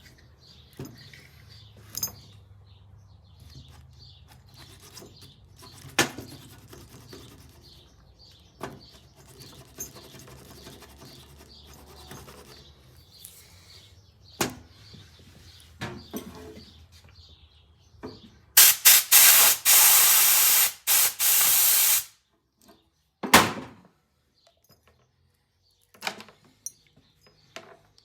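Aerosol cleaner sprayed onto disassembled throttle-housing parts: a few short bursts, then one spray of about two seconds. Small parts click and knock when handled before and after, with one sharper knock just after the spraying.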